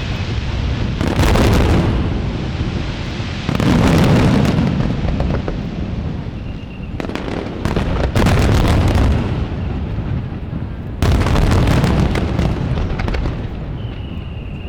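Aerial fireworks shells bursting at close range: about five loud booms, each trailed by dense crackling, over a continuous deep rumble from the ongoing barrage.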